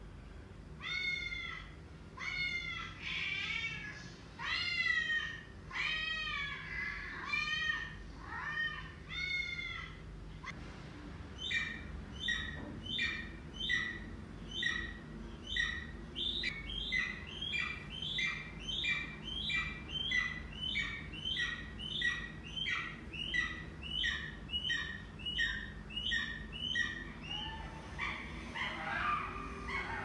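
Recorded cat meows played as a sound effect: a string of rising-and-falling mewing calls about one a second, then from about eleven seconds in a faster, even run of shorter, higher mews, about one and a half a second, that stops a few seconds before the end.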